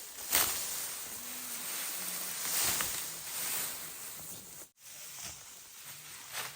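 Dry rice stalks rustling and swishing in repeated sweeps as they are cut and handled by hand. The sound drops out completely for an instant about two-thirds of the way in.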